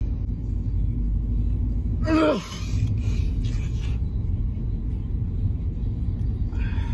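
A person sneezing once about two seconds in: a sharp noisy burst with a voiced cry falling in pitch, followed by a breathy stretch, over a steady low rumble.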